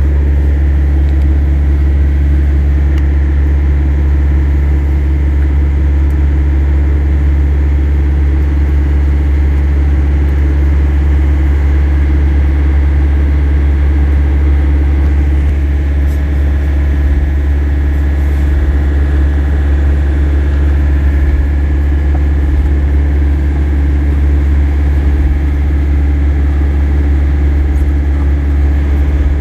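Large diesel engine idling, a steady low drone.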